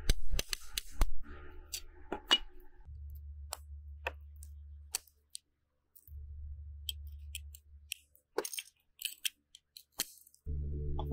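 Grozing pliers nibbling the edge of a cut glass circle: scattered sharp clicks and crunches of glass chipping away, clustered near the start and again in the last few seconds.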